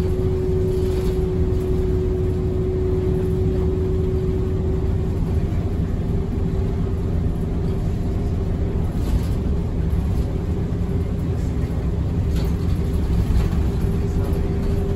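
Shuttle bus running, heard from inside the cabin: a steady low rumble with a steady whine held on one pitch.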